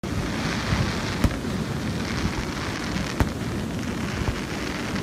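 Aerial fireworks going off, with two sharp bangs, one about a second in and another about two seconds later, over the steady rushing noise of the waterfall.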